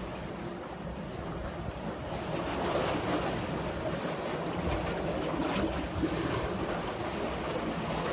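Seawater surging and splashing in the gaps between shoreline rocks.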